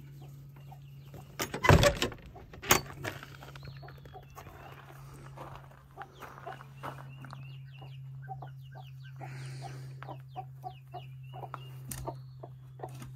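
Chickens in a coop, with repeated clucking and many short high peeps from young chicks. A couple of loud knocks or bumps come about two seconds in, over a low steady hum.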